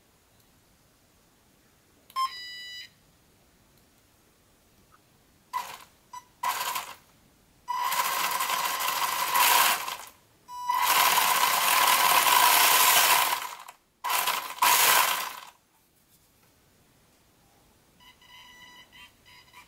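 WLToys 144001 RC buggy's brushed electric motor and 4WD drivetrain spinning the wheels in the air in five throttle bursts, the longest about three seconds, each with a steady whine. A short beep from the speed controller about two seconds in as it is switched on.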